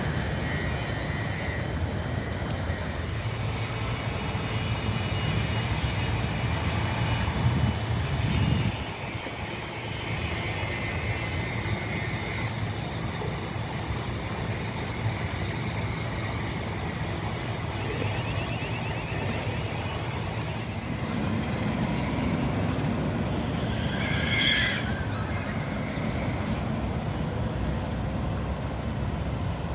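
Steady low outdoor rumble, like distant vehicles or machinery, with a brief high-pitched squeal about 24 seconds in.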